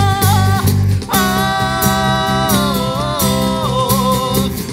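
Live acoustic band playing: a man singing long held notes over two strummed acoustic guitars, electric bass and a cajon keeping a steady beat, with a short break in the phrase about a second in.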